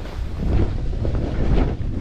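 Wind buffeting a GoPro's microphone at riding speed, with the hiss and scrape of a snowboard's base and edges sliding over snow; a louder scraping swell comes about three-quarters of the way through.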